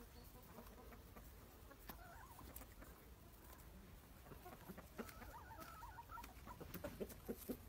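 Faint, soft clucking of a flock of Amrock chickens foraging. The short calls come more often toward the end.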